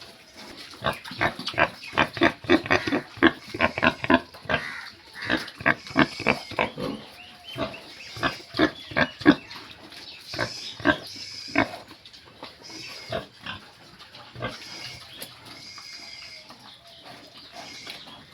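Pigs grunting in quick, short, repeated bursts, several a second. The grunting is loudest through the first dozen seconds, then goes on fainter.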